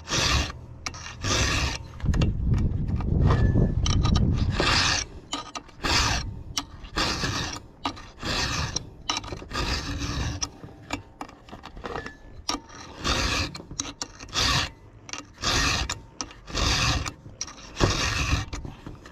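A 5.5 mm round chainsaw file rasping across the cutters of a .404 semi-chisel chain in repeated hand strokes, about one a second, sharpening the cutting edges.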